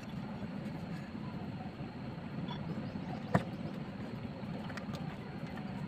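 Light handling of the opened horn's parts, with one sharp click a little over three seconds in, over a steady low background rumble.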